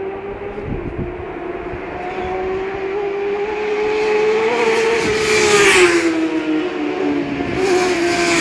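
Racing motorcycles at speed on a road course, with the engine note rising as one approaches. The note drops in pitch as it passes close by about halfway through, and a second bike goes past near the end.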